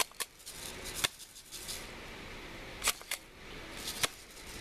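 Airsoft guns firing: sharp, irregularly spaced snaps, several coming in quick pairs.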